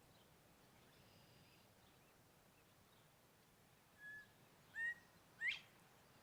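A bird calling: three short calls in quick succession near the end, the last the loudest and sharpest, over a faint background hiss, with faint high chirps early in.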